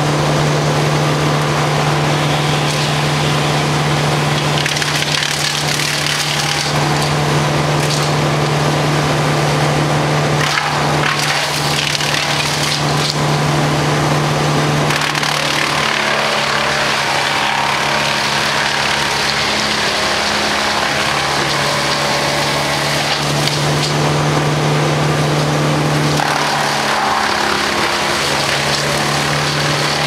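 Wood chipper chipping leafy tree branches: the engine runs steadily while the limbs crack and splinter as they are chewed up. The engine note sags briefly twice under the load, about two-thirds through and again near the end.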